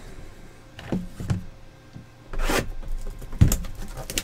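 Cardboard trading-card boxes handled and moved on a tabletop: a few light knocks, a brushing rub about two and a half seconds in, and a sharper knock about a second later as a box is set down.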